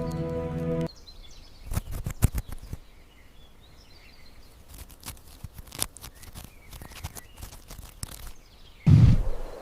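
A short music sting cuts off about a second in, followed by outdoor nature ambience with faint birds chirping and scattered clicks. Near the end a loud, low animal roar breaks in suddenly.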